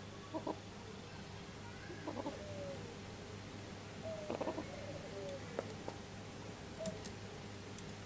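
Albino Barbary dove (white, red-eyed puter) cooing: three main coos about two seconds apart, each a short note that runs into a drawn-out falling tone, with a couple of shorter calls after them.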